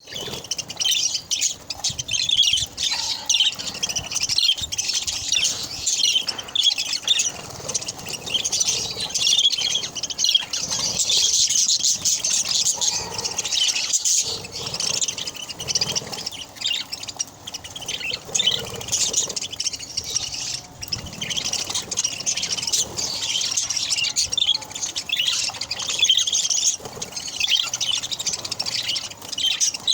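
A group of budgerigars chattering and chirping continuously, a dense overlapping twitter of many small bird voices.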